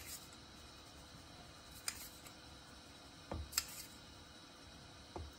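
Light, irregular taps and clicks from a stainless steel flour sifter, tapped by hand over a glass bowl to shake whole wheat flour through: about five soft knocks, two of them close together a little past the middle.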